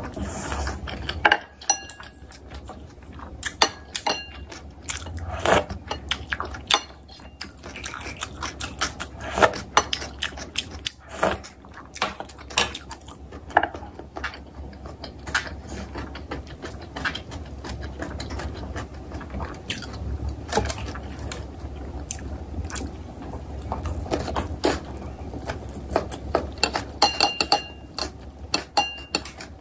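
A person chewing food close to the microphone: an irregular run of sharp mouth clicks and smacks. Near the end, chopsticks clink on a plate as kimchi is picked up.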